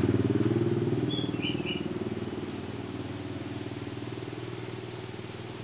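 A motorcycle engine running steadily, its sound fading away over a few seconds as it moves off. A short bird chirp sounds about a second and a half in.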